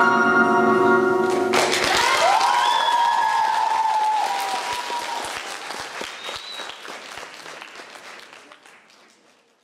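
The dance's recorded accompaniment ends on a held chord, and about a second and a half in an audience breaks into applause with a cheer rising over it. The applause fades away toward the end.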